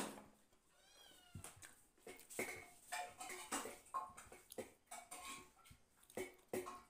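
A small cat meowing again and again in short, high calls, after a sharp click at the very start.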